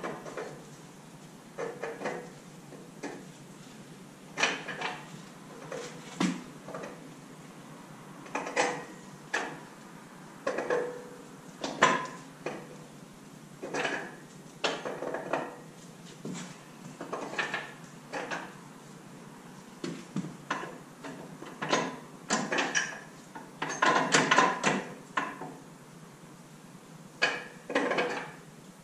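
Irregular metal clanks and clinks, some ringing briefly, from steel tractor parts and hand tools knocking together as a stuck part on a Kubota compact tractor is worked loose. The knocks come in a dense cluster a little before the end.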